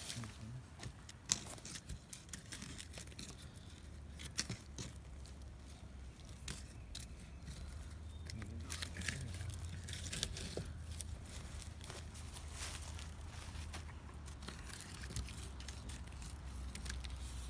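Gear being handled: scattered clicks, rustles and crinkles of plastic and metal, over a steady low hum.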